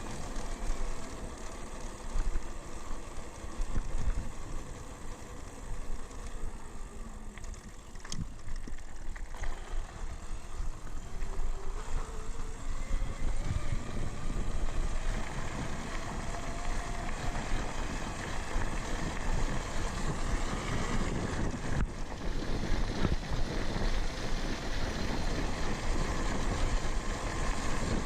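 Cotton Mouth electric bike being ridden: wind on the microphone and rolling tyre noise, with a faint motor whine that rises and falls in pitch.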